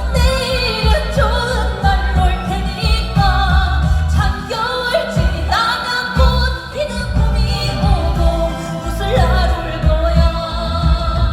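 A woman singing a trot song live with vibrato over a backing track with a steady bass beat.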